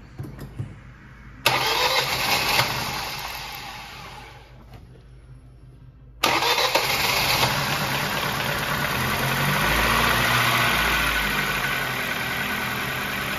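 Ford Focus 1.6 L four-cylinder petrol engine starting for the first time after an engine replacement. About a second and a half in it fires and then fades away within about three seconds. About six seconds in it starts again and keeps running, swelling briefly near ten seconds before settling into a steady idle.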